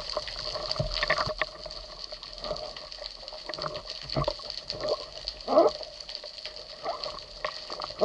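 Underwater sound picked up by a camera mounted on a speargun: a steady hiss with scattered clicks and knocks and short bubbling gurgles, the loudest about five and a half seconds in.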